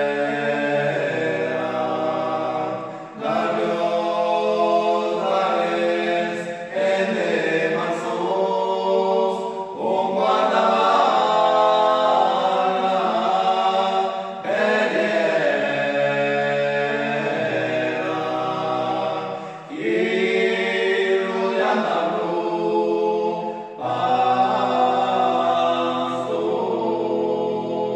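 Male vocal quartet singing an Occitan song a cappella in close harmony, in phrases of three to four seconds with short breaks between them.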